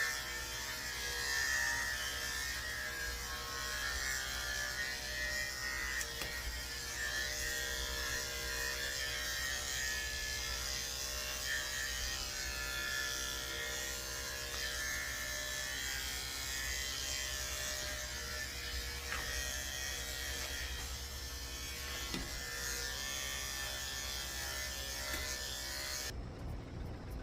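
Electric dog-grooming clippers with a number 7 blade running steadily as they shave the hair on a dog's legs.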